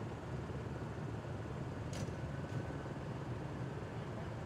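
Steady low rumble of an idling vehicle engine, with a brief sharp click about two seconds in.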